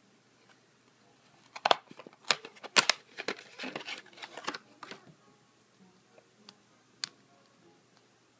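A small paperboard candy-toy box being torn open by hand: a burst of sharp clicks and crinkling rustles from about a second and a half in to about five seconds, then a single sharp click near the end.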